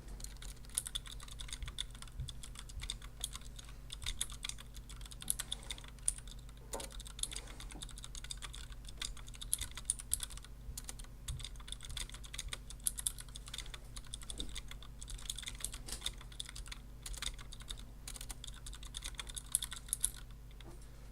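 Continuous fast typing on a KBP V60 mechanical keyboard with clicky Cherry MX White switches in a Tex case: a dense stream of sharp key clicks that stops shortly before the end.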